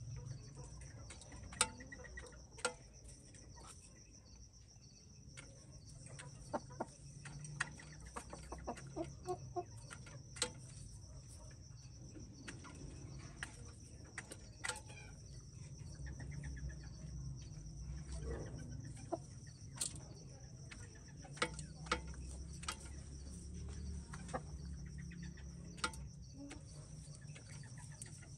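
Silkie chickens clucking at intervals, with scattered sharp clicks throughout. A steady high trill, plausibly insects, runs underneath.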